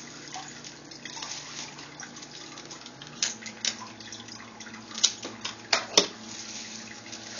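Plastic bendy straws, bubble wrap and packing tape being handled and pressed down. Soft crinkling, then several sharp plastic clicks and crackles in the second half, over a steady background hiss.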